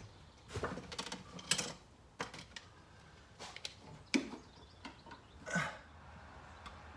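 Small screwdriver and an outlet cover plate: a scattering of irregular clicks, taps and short scrapes as the cover plate is fitted and screwed onto the outlet box.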